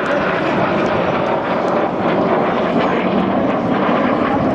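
BAE Hawk T1 jets of the Red Arrows flying a display manoeuvre, with a steady, loud rushing jet noise.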